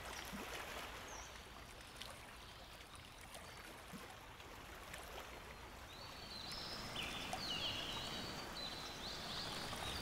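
Lumion's ambient scene audio: a faint, steady sound of running water. From about two-thirds of the way in, a run of short high tones at stepped pitches joins it.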